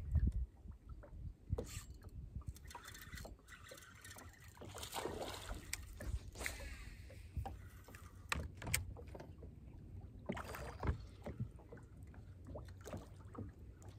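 Small waves lapping against the hull of a bass boat, over a low rumble, with scattered clicks and knocks throughout.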